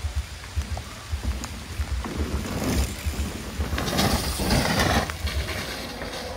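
Rain ambience: a steady hiss of rainfall with irregular low thumps, and a rush of noise that swells about two seconds in and dies away near the end.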